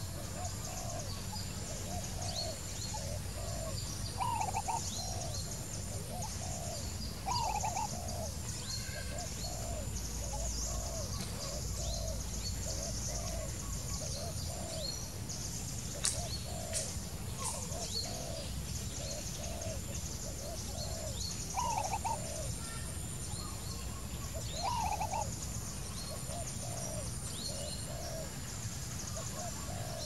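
Wild birds calling: a steady run of short low notes, about two a second, with a few louder, higher-pitched notes every few seconds, over a thin, steady high hiss.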